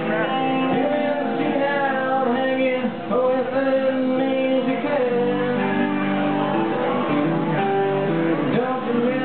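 Live band performance: a male singer singing into a microphone over acoustic and electric guitars.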